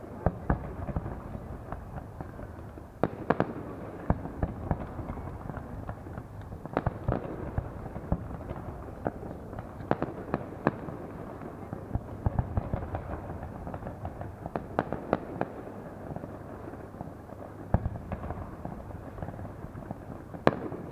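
Fireworks going off: many sharp bangs and crackles at irregular intervals, some in quick clusters, over a steady background rumble.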